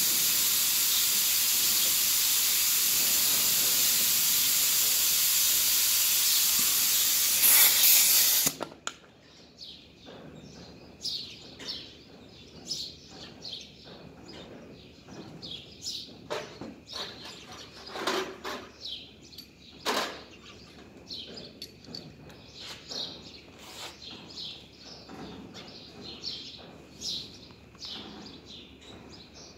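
A loud, steady hiss that cuts off suddenly after about eight seconds. Then small birds chirp on and off, with a few sharp metallic clinks of hand tools being handled.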